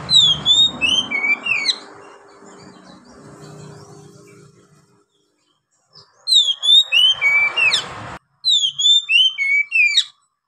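Oriental magpie-robin singing: three bursts of the same quick phrase of loud whistled notes that swoop up and down. The first comes at the start, and two more follow close together about six seconds in.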